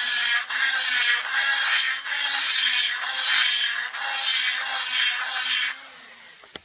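Rotary grinding tool cutting the aluminum ports of a McCulloch S550 chainsaw cylinder, run slowly so the bit does not gum up with aluminum. It makes a harsh grinding hiss over a steady motor hum, in about five passes that swell and ease. Near the end the cutting stops and the tool spins down.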